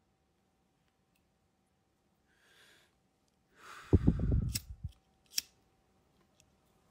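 A faint drag on a lit smoke, then a loud exhale of smoke blown onto the phone's microphone: a low, breathy blast about four seconds in. Two sharp clicks follow.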